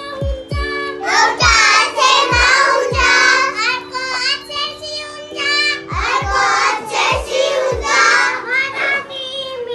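Young children singing a song together over backing music of sustained keyboard chords and a bass drum beat.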